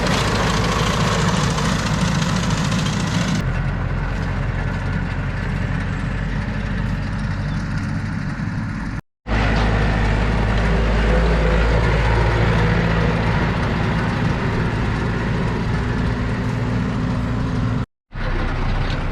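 Tractor diesel engine running steadily while working a grass field. The sound drops out abruptly twice, about nine and eighteen seconds in, then picks up again.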